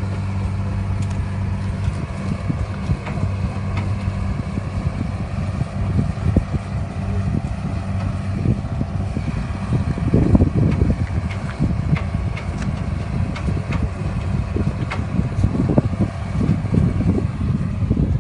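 A heavy diesel vehicle's engine idling steadily. Gusts of wind hit the microphone, loudest about ten seconds in and again near the end.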